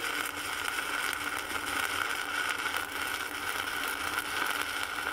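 Stick (shielded metal arc) welding arc burning steadily on a restarted electrode, a continuous crackling hiss with a steady high tone under it: the rod has struck and is running instead of sticking.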